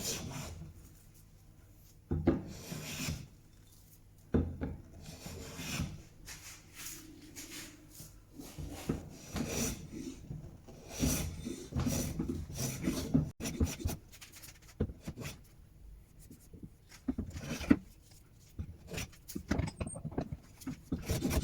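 Freshly sharpened hand plane cutting along a hardwood furniture leg in a series of strokes, each a second or two long, with short pauses between them. The grain is wild, and the blade tears out fibres as it cuts.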